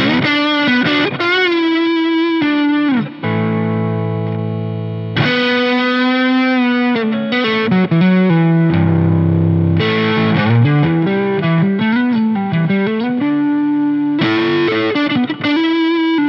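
1978 Tokai Springy Sound ST-42 electric guitar played with a distorted, overdriven tone through a Fender '65 Deluxe Reverb amp: single-note lead lines with string bends and vibrato, quick runs and held chords.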